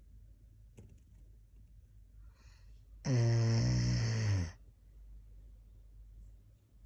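Sleeping Doberman snoring once, a single long, rough snore lasting about a second and a half, starting about three seconds in.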